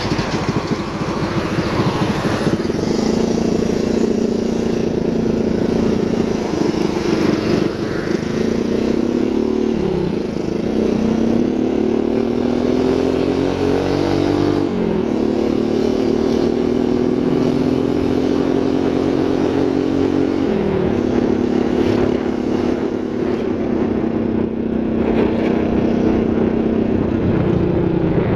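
A heavy truck passes close by at first. Then a small motorcycle engine runs under way, its pitch climbing as it speeds up and dropping sharply three times at gear changes, over steady road noise.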